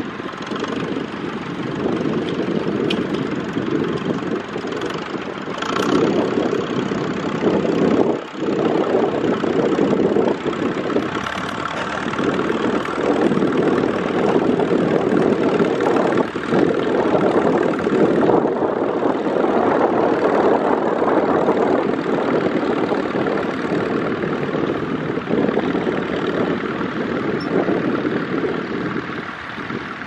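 Vintage farm tractor engines running steadily under ploughing load: first a small red Farmall wheeled tractor, then, after a brief dip about eight seconds in, a green crawler tractor.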